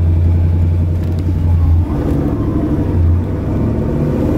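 Ford 302 crate V8 in a 1964½ Mustang running as the car drives, heard from inside the car. Its deep engine note dips about two seconds in, then picks up again.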